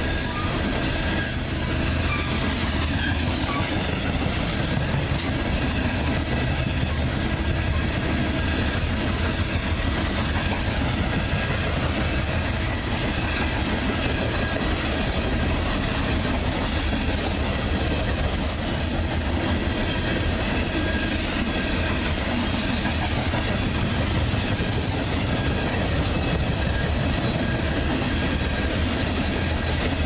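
Coal train hopper cars rolling past at speed, a steady, unbroken sound of steel wheels running on the rails.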